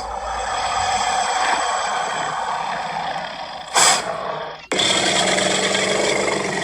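Recorded dinosaur roar sound effect from the exhibit's audio tour: a long, noisy growl, with a brief sharp hiss about four seconds in and an abrupt break just after.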